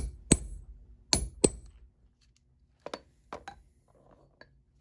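Hammer striking a metal rivet setter, driving a solid copper rivet and burr down against a granite block: four sharp, ringing metallic strikes in two quick pairs within the first second and a half. Then a few lighter clinks as the tools are set down on the stone.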